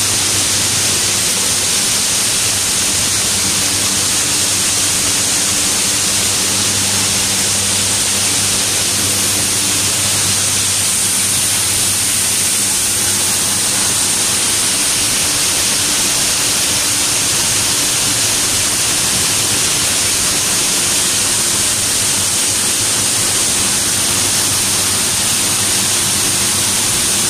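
Coffee-processing plant machinery running: a loud, unchanging hiss with a low hum under it.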